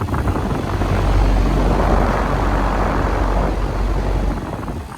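A 2016 Goodman GSX13 air-conditioner condensing unit running: the outdoor fan's steady whoosh over a low hum, swelling in the middle and dropping off near the end.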